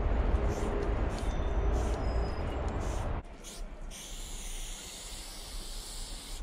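Aerosol spray-paint can hissing in short spurts against a freight car's metal side, over a heavy low rumble of wind on the microphone. About three seconds in the rumble cuts off abruptly, leaving a steady high hiss of spraying.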